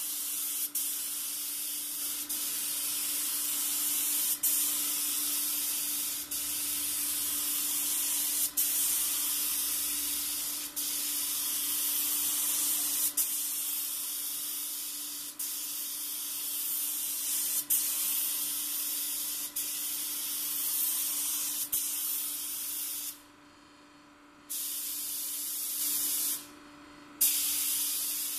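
DeVilbiss GTi Pro gravity-feed spray gun hissing steadily as it atomises blue 2-pack base coat, the air dropping briefly between passes. The hiss cuts off twice near the end for a second or so as the trigger is released.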